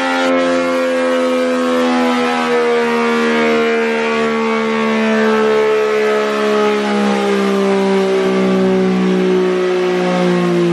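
A sport motorcycle spinning a chassis-dynamometer roller at high speed, its tone falling slowly and steadily as engine and roller wind down after a pull.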